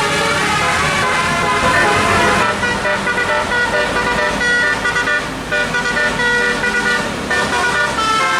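Tour bus's multi-note 'telolet' musical air horn playing a tune, its notes switching in quick steps.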